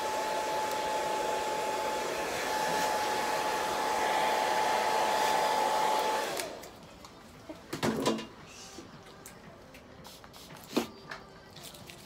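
Hand-held hair dryer blowing on a dog's coat: a steady rush of air with a thin steady whine. It is switched off a little past halfway, leaving a few short sharp sounds.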